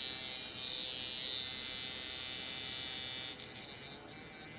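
Coil tattoo machine buzzing steadily on its power supply at about 8 volts, with its copper-clad aluminum coils; a machine that has never run right for its owner. The buzz softens slightly about three and a half seconds in.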